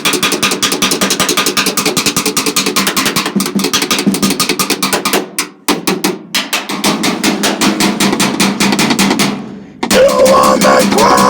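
Rapid drumming, a fast roll of about ten strokes a second with two brief breaks. Near the end, electronic music with sustained synth tones comes in.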